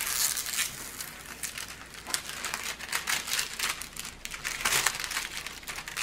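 Clear plastic protective film on a diamond painting canvas crinkling and crackling irregularly as it is lifted and smoothed down by hand.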